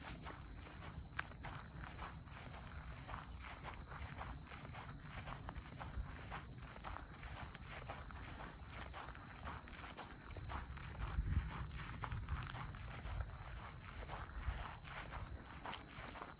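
Footsteps crunching steadily along a trail, over a constant high-pitched chorus of crickets.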